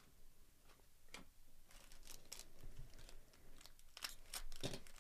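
Foil wrapper of a 2024 Topps Series 1 baseball card pack crinkling and tearing in gloved hands, with the cards being handled. Faint scattered crackles that grow busier and louder in the second half.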